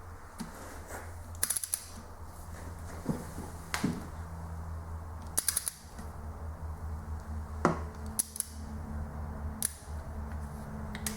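Sharp clicks of a click-type torque wrench as Toyota 2SZ cylinder head bolts are tightened in sequence to 34 Nm, about half a dozen clicks a second or two apart, over a low steady hum.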